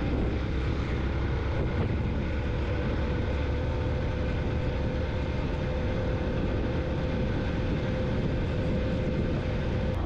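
Yamaha FZ-X motorcycle's single-cylinder engine running at a steady cruising speed: an even drone with no change in pitch.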